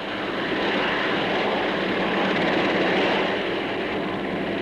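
Bristol 192 tandem-rotor helicopter running on one Napier Gazelle turbine engine. It gives a steady, even rushing engine noise with a faint low hum, swelling slightly about three seconds in.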